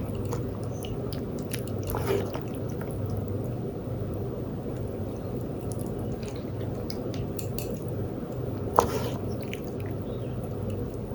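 Soft, wet eating sounds: chewing and small mouth clicks from eating rice and soft boiled vegetables, with one sharper click near the end, over a low steady hum.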